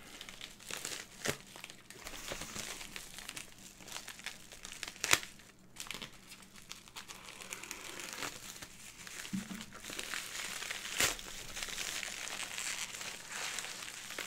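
A USPS mailing envelope being handled and opened by hand: continuous crinkling and rustling of the envelope material, with a few sharp snaps, the loudest about five and eleven seconds in.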